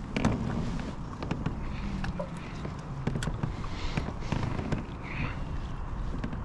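Wind rumbling on the microphone and water lapping against a kayak hull, with scattered sharp clicks and ticks.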